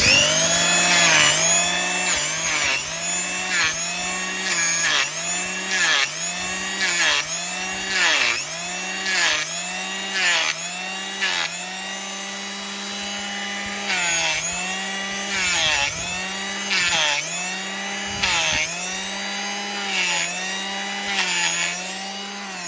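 Electric power tool grinding down a donkey's hoof horn, its motor whine dipping in pitch and recovering about once a second as it is pressed into the hoof, over a gritty grinding hiss. The hoof is frost-cracked and rotting, and the trimming takes flakes of horn off it.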